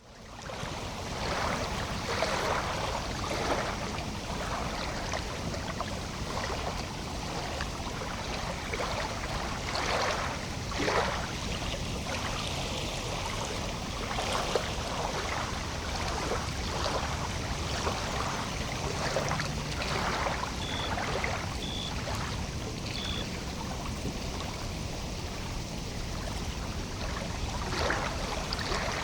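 Lake water lapping in small, irregular splashes over a steady low rumble, fading in at the start. Three short, high chirps come about two-thirds of the way through.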